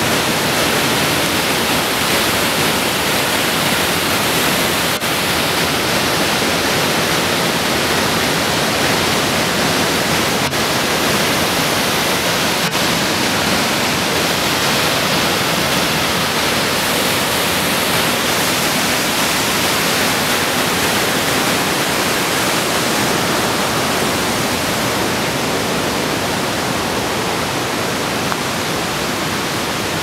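Conwy Falls, a river waterfall tumbling over rock, rushing with a steady, dense roar of falling water that eases slightly near the end.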